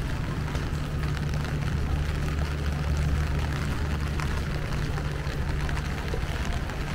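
Steady rain falling, with a low, steady rumble of traffic or an engine underneath.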